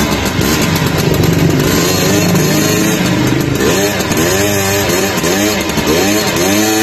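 50cc scooter engine, freshly rebuilt with new parts, running stationary; in the second half it is revved in a run of quick throttle blips, each rising and falling in pitch, about one or two a second.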